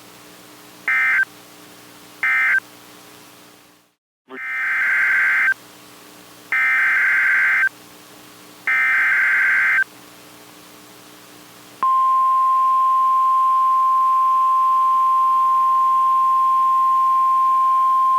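NOAA Weather Radio Emergency Alert System data bursts: three short, screechy SAME end-of-message bursts close the previous alert. After a brief dropout come three longer SAME header bursts for the next alert. From about two-thirds of the way through, the steady 1050 Hz weather radio warning alarm tone sounds.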